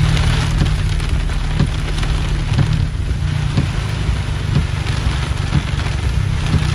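Heavy rain pelting down on glass: a dense, steady hiss over a low rumble, with a soft knock about once a second.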